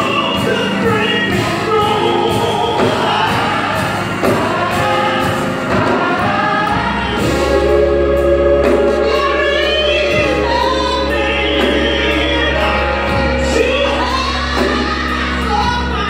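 Live gospel singing: a woman sings lead into a handheld microphone, backed by choir voices and accompaniment. A deep held bass note comes in about seven seconds in and sustains under the voices.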